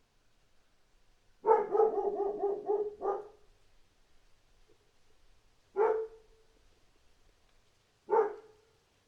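Dog barking: a rapid string of barks lasting about a second and a half, then two single barks a couple of seconds apart.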